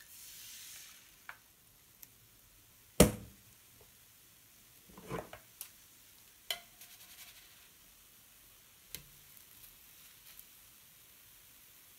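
Batter hissing and sputtering out of a plastic squeeze bottle for the first second, then kitchen handling sounds: a sharp knock about three seconds in as the bottle is set down and the spatula picked up, followed by a few clicks and scrapes of a spatula on the griddle pan as a small pancake is flipped.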